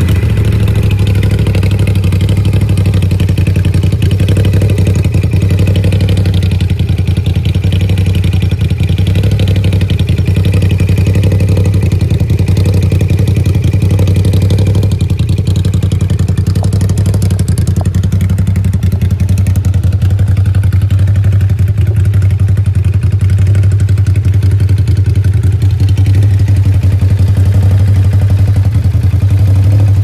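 Ducati SuperSport's 937 cc L-twin idling steadily through an Austin Racing aftermarket exhaust, loud and even.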